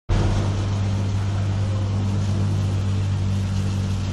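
A steady low hum with a strong, even low pitch over a constant hiss, unchanging throughout.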